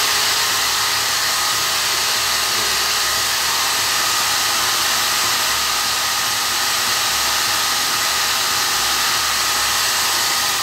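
Bosch GWS 9-125 S angle grinder running steadily at full speed with a high whine, driving a pink grinding stone held in a drill-chuck adapter, while small steel keys are held against the spinning stone to sharpen them.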